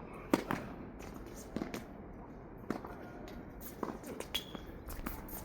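Tennis play on a court: one sharp, loud ball strike just after the start, then quieter knocks of ball and racket and shoes scuffing on the court surface, with a brief squeak past the middle.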